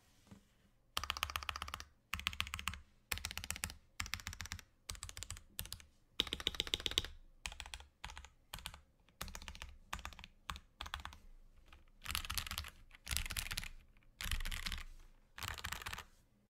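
Typing on a KBD67 Lite mechanical keyboard with filmed Gateron Red linear switches: runs of rapid key clacks, each about a second long, broken by short pauses.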